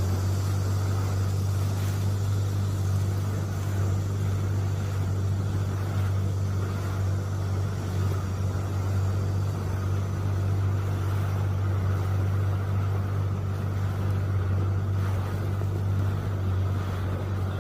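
An engine running steadily: an unbroken low drone with a hiss of noise above it, level throughout.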